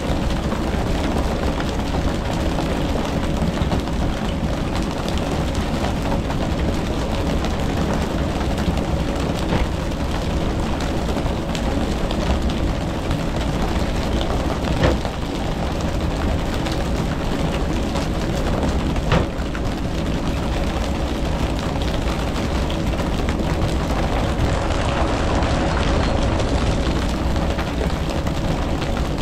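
A fishing boat's engine running steadily under way, with wash and wind noise, and two short sharp knocks near the middle.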